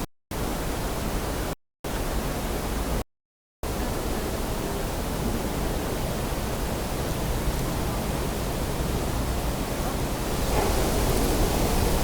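A steady, even rushing noise that cuts out to dead silence three times in the first few seconds, then runs on unbroken and grows a little louder and fuller near the end.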